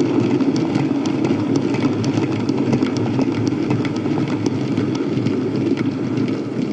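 Model V100 diesel locomotive running along model railway track: a steady rumble from the motor and wheels, with many small clicks throughout.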